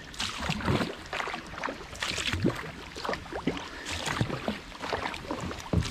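Kayak paddle strokes splashing and dripping in calm, duckweed-covered water: a run of irregular splashes and drips as the blades dip in and lift out.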